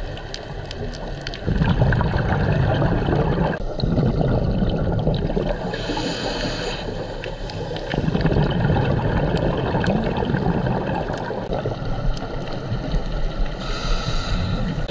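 Scuba diver breathing through a regulator underwater: exhaled bubbles rumbling and gurgling in long bursts, with a short hiss of inhalation about six seconds in and again near the end.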